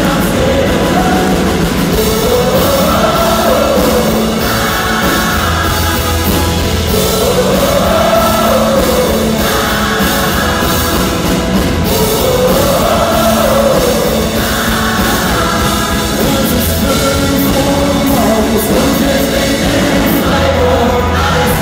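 Live pop-rock song through a concert PA: electric guitars, drums and a sung melody, with a large choir singing along. The sung phrase rises and falls about every five seconds.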